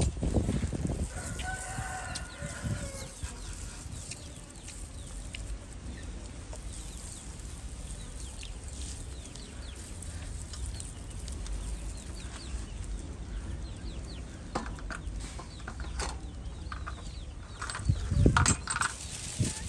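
Chickens calling: a drawn-out call about two seconds in and a run of short clucks near the end. There is a loud low rumble near the end.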